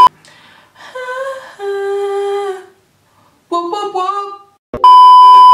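A woman's voice singing a note, wavering and then holding a lower pitch, followed by a short gliding sung phrase as she tries to hit a note she can't get right. Near the end, a loud steady bleep tone is edited in over it for about a second.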